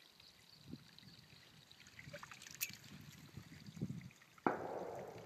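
Long-handled dip net swept through pond water: faint splashing and trickling of water. Near the end comes a sudden louder rush as the net is lifted out with its load of wet debris.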